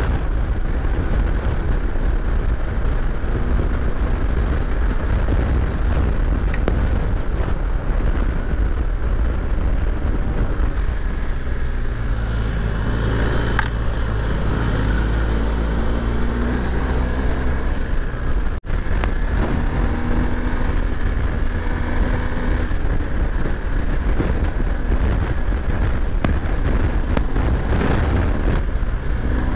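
BMW R 1250 GS boxer-twin engine running as the bike is ridden, heard under heavy wind buffeting on the microphone. In the second half the engine note rises and falls repeatedly with the throttle.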